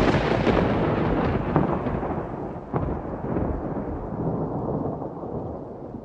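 Thunder from a close lightning strike: a loud crackling peal that rolls into a long rumble, fading over several seconds, with further sharp cracks about a second and a half and nearly three seconds in.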